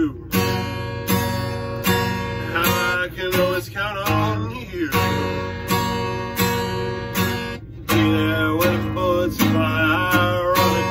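Acoustic guitar strummed in an even rhythm, a chord about every three-quarters of a second, with a man's voice singing along in places.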